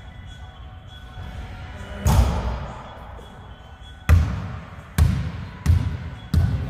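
Basketball bouncing on a hard court: one bounce about two seconds in, then steady dribbling from about four seconds in, roughly a bounce every three-quarters of a second.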